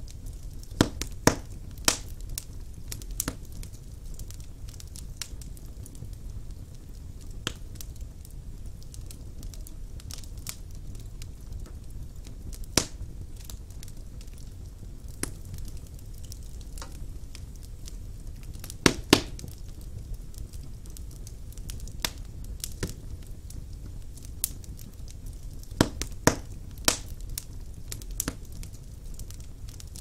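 Wood fire burning in a fireplace: a low steady rumble of flame with sharp, irregular crackling pops, several coming close together about a second in, again about two-thirds through, and near the end.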